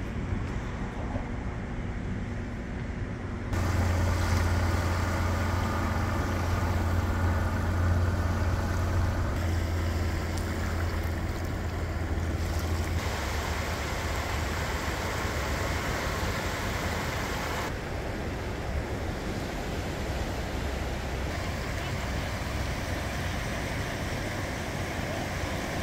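Small waves washing and lapping on a sandy shore, over a deep steady rumble. The sound changes abruptly several times as the recording cuts between spots along the water.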